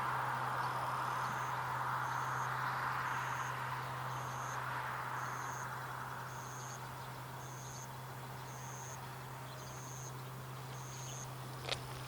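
Vehicle noise slowly fading away over a steady low hum, while a short high-pitched note repeats about once a second; a sharp click comes near the end.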